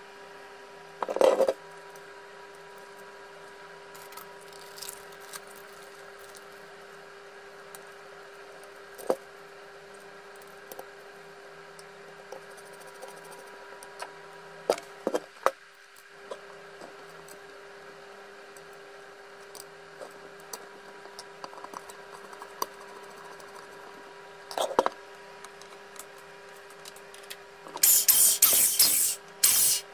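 Occasional knocks and clicks as the plastic body of a Makita 1902 electric planer is picked up, set down and turned over on a wooden bench, over a steady faint hum. About 28 s in, loud bursts of hissing start.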